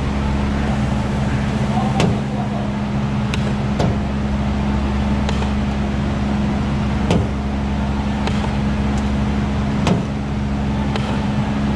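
A stud-welder dent puller working a dent out of a car door's bare steel skin: a sharp click or snap every one to three seconds over a steady low hum.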